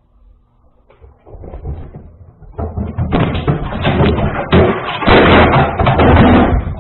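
A rapid, irregular run of loud thumps and knocks that starts about a second in and grows much louder about three seconds in.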